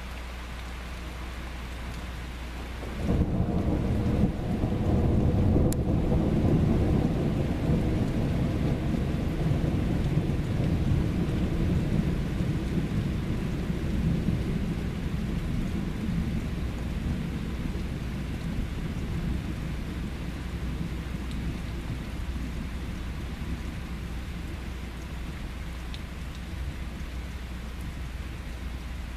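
Steady rain falling; about three seconds in, a clap of thunder begins suddenly and rumbles on, slowly fading over some twenty seconds.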